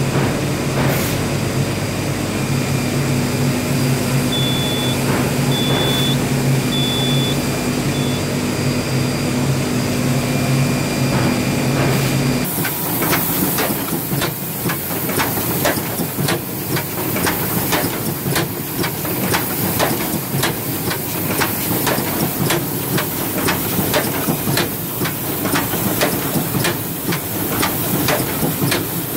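2001 Wohlenberg Quickbinder perfect binding machine running with a steady hum. Four short high beeps come about five seconds in. About halfway through the sound changes abruptly to a dense, rapid clatter from the running mechanism.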